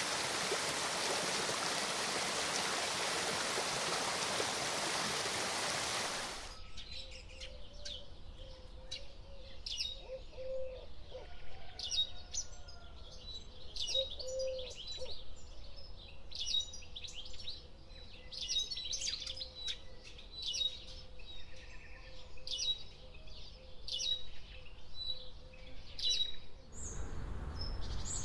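A steady rushing noise that cuts off about six seconds in, followed by a bird calling in a long series of quick, sharp, high chirps.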